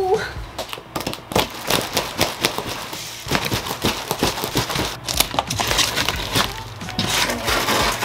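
Cardboard packaging of a flat-pack dresser box being opened and pulled apart by hand: dense, irregular crinkling, scraping and crackling of cardboard.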